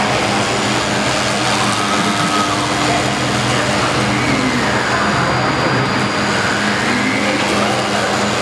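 HG-1325 CNC router running, its spindle-driven bit cutting through a polyfoam block. The motors give a steady noise with a whine that rises and falls in pitch several times as the head speeds up and slows along the curved cut.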